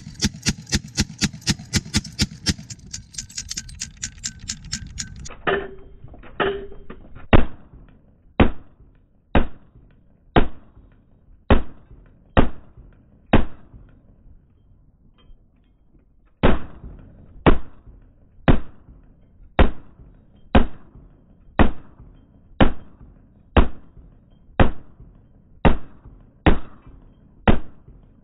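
1874 Camel model Gatling gun firing: for about five seconds a fast, even string of shots, about five a second, then the firing slowed down so that single shots come about one a second, each trailing off, with a pause of about three seconds midway.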